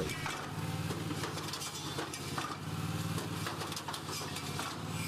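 Self-propelled tobacco spiker machine running: a steady engine hum with light metallic clinking and rattling from its mechanism.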